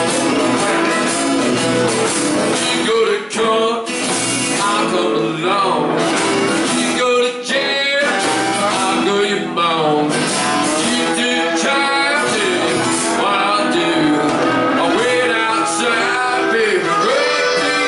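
Live band playing a bluesy rock song: a man singing lead over acoustic and electric guitars, keyboard, bass and drums.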